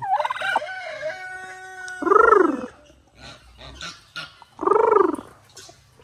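Domestic fowl calling: a drawn-out pitched call in the first two seconds, then two loud calls that rise and fall in pitch, about two and a half seconds apart.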